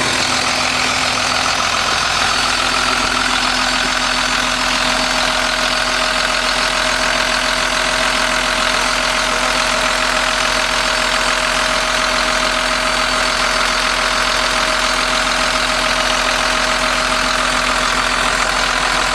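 Kato HD 1430 excavator's diesel engine running steadily, heard up close at the open engine compartment, with a constant whine over the engine noise.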